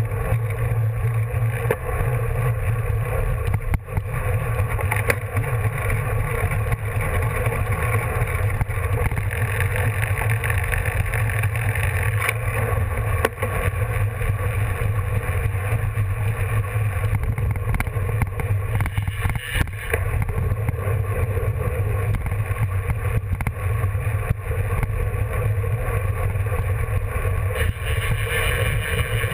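Steady wind rush and low rumble on a bike-mounted action camera's microphone while a road bicycle rides at speed, mixed with the hum of the tyres on the road surface. The hiss grows a little brighter near the end.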